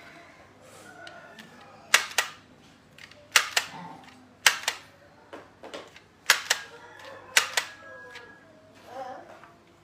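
Handheld price labeling gun clicking as its trigger is squeezed and released to print and feed out price stickers: five sharp double clicks, one every second or two.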